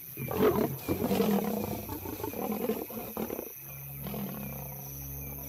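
Lions growling in a fight for about three and a half seconds, then a low steady droning tone takes over.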